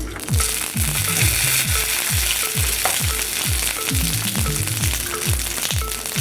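Banana-leaf-wrapped fish parcels sizzling in a pan of hot oil, the sizzle starting as they go into the pan and then holding steady. A steady musical beat runs underneath.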